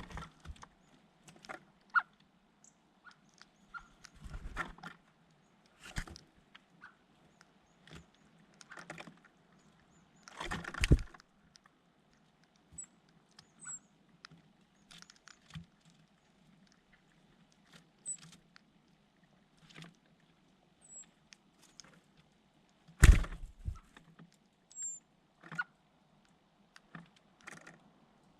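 Small birds tapping and scuffling close to the microphone: scattered irregular clicks and knocks, two louder thumps about eleven and twenty-three seconds in, and a few brief, faint high chirps.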